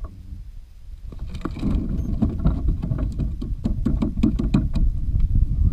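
Kayak moving through water: small splashes and lapping against the hull, coming thicker and louder from about a second in, over a steady low rumble of wind on the microphone.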